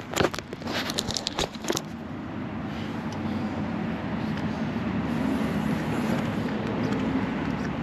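A few sharp clanks in the first two seconds, then a steady motor hum with a low drone that slowly grows louder.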